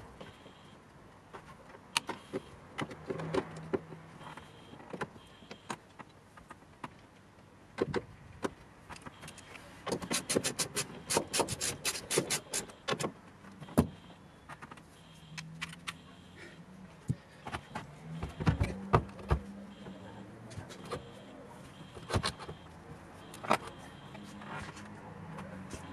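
Hands working on parts in a car trunk: irregular clicks, knocks and rattles of plastic and metal parts being handled and fitted. A dense run of rapid clicks comes about ten seconds in.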